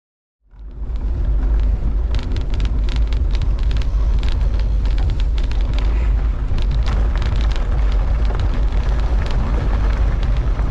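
Wind buffeting the camera microphone as a mountain bike rolls along a gravel track, with many small rattles and clicks from the bike and stones; it fades in about half a second in.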